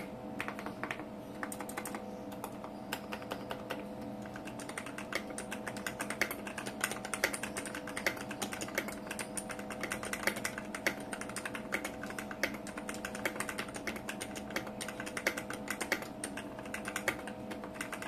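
Continuous fast typing on a Daxa M71 mechanical keyboard fitted with lubed Gateron Milky Black linear switches in an acrylic tofu case: a dense, steady stream of keystrokes.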